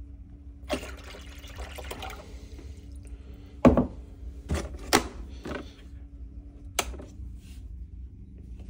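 Small portable generator running with a steady hum, while a few sharp knocks and clatters of things being handled sound over it, the loudest about halfway through.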